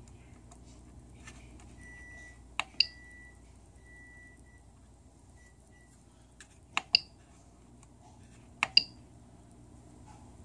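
Push-button control knob of a Prusa i3 MK2S 3D printer being pressed to step through its LCD menus: sharp clicks in three close pairs, each with a short high ring after it.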